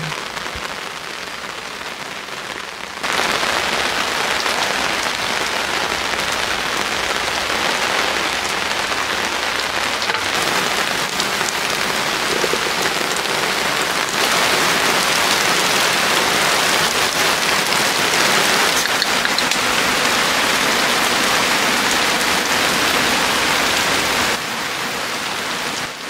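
Steady rain falling, a dense even hiss. It gets louder about three seconds in and again around fourteen seconds, then drops back a little near the end.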